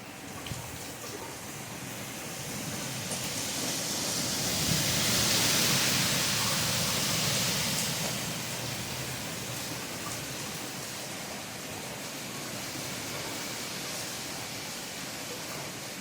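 Steady rain falling, a dense even hiss that swells louder for a few seconds near the middle, then eases back.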